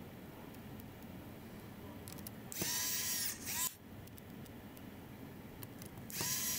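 Pen-style electric precision screwdriver driving small screws into a laptop's hinge: two short runs of a high motor whine, the first about two and a half seconds in and lasting about a second, the second near the end.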